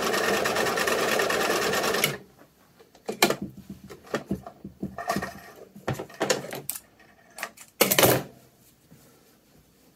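Vintage Baby Lock Companion Model 722 sewing machine stitching at a steady, even rate, stopping abruptly about two seconds in. Then scattered clicks and rustling as the fabric is handled and pulled off the machine, with the loudest rustle near the end.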